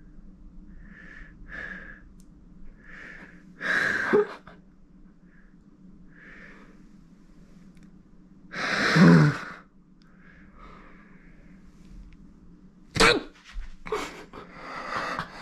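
A man's short strained hums and breaths through a nose plugged with nose-hair wax, then about nine seconds in one loud, explosive, sneeze-like burst of breath and voice as the wax is yanked out of his nostrils; sharp breaths and gasps near the end.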